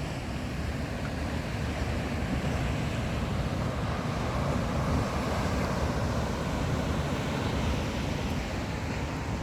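Atlantic surf: waves breaking and washing up the beach, a steady hiss that swells to its loudest about halfway through and eases off again.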